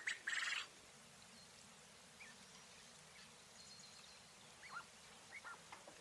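Coturnix quail hen calling: a short harsh, rasping call near the start, then a few soft, short falling chirps toward the end.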